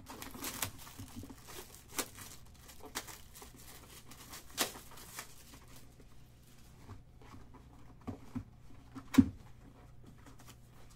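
Plastic shrink wrap tearing and crinkling as a box of trading cards is opened, with scattered sharp cardboard clicks and taps, the loudest near the end. A faint low steady hum runs underneath.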